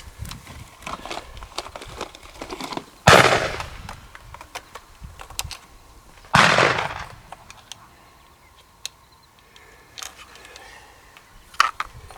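Two shotgun shots about three seconds apart, each a sharp blast followed by a fading echo.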